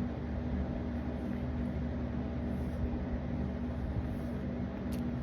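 A steady low mechanical hum with a constant pitched tone, from a running motor or fan, and a sharp click near the end.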